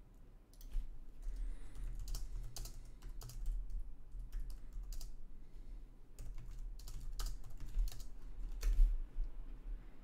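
Computer keyboard being typed on: quick runs of keystrokes broken by short pauses, with a low hum underneath.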